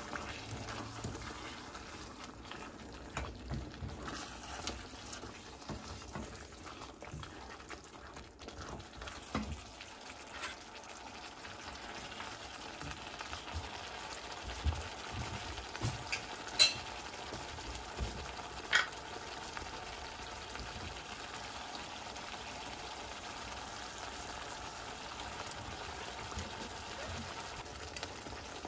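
Thick curry sauce simmering and spluttering in a wok while a spatula stirs and scrapes through it, with a few sharp clicks in the middle.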